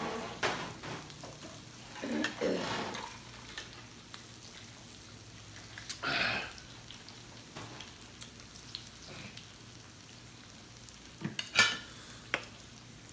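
Pork and shrimp sizzling steadily on a tabletop Korean barbecue grill around a pot of hot pot broth, with a few clinks and knocks of spoons and chopsticks on bowls and the pot, the loudest near the end.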